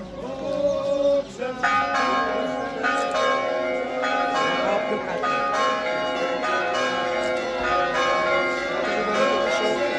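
Church bells ringing, several overlapping tones struck about once a second, starting about a second and a half in.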